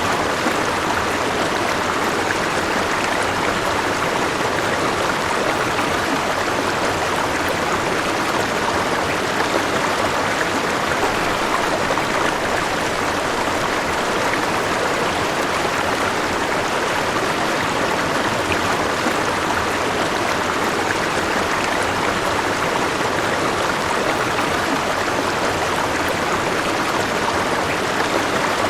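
River flowing steadily, a continuous rushing of water with no change over the whole stretch.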